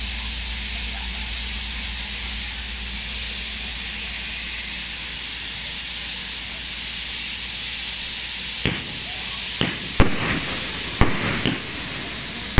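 Ground fountain fireworks hissing steadily as they spray sparks. From about nine seconds in, about five sharp firework bangs follow in quick succession as aerial fireworks go up.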